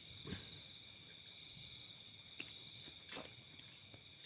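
Steady, faint high-pitched chirring of insects, most likely crickets, with a few faint soft clicks.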